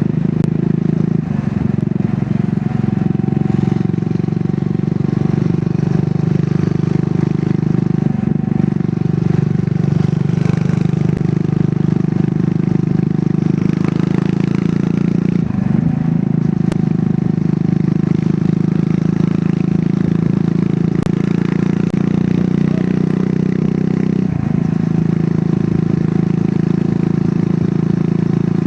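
Triumph Scrambler 400 X's single-cylinder engine running through its stock exhaust while riding at a steady pace. The engine note dips briefly and recovers a few times.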